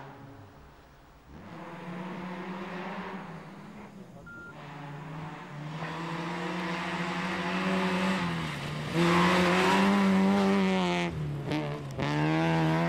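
Daihatsu Charade 4WD rally car's engine revving hard through the gears on a snow stage. The pitch climbs and drops at each shift or lift, and it gets louder in the second half as the car comes close.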